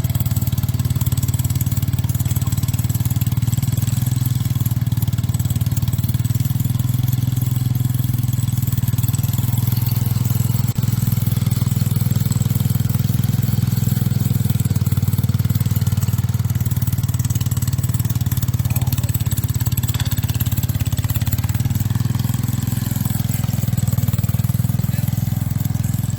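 Small single-cylinder-class garden tractor engine running steadily at a constant speed.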